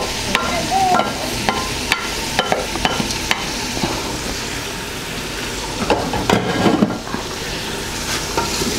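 Onions, green peppers and chopped celery sizzling in a large metal pot while a wooden spatula scrapes the greens off a plate and stirs them. The spatula knocks lightly against the pot many times, most busily about six to seven seconds in.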